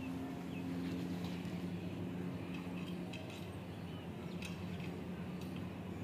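Small birds chirping briefly and faintly now and then over a steady low mechanical hum.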